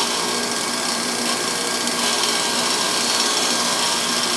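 Bench grinder running steadily with a wire wheel, a constant hum with a hiss over it, as the wheel brushes the hardened outer layer off the edge of a rubber mallet head to chamfer it.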